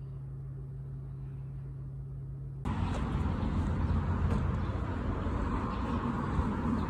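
A steady low hum that cuts suddenly, a little over two and a half seconds in, to louder outdoor street ambience with road traffic noise.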